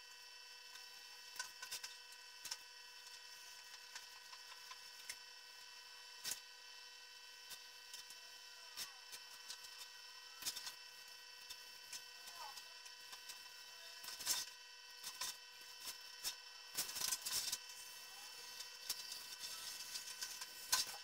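Snap-off utility knife cutting foam board along a paper template: short scraping strokes and small clicks, busier and louder about two-thirds of the way through, over a faint steady high-pitched whine.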